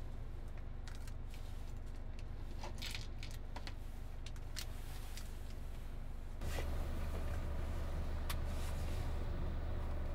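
Scattered small clicks and rustles as a plastic packet of metal box corner fittings is handled and the fittings are set down on a wooden floor, over a steady low hum that gets louder about six seconds in.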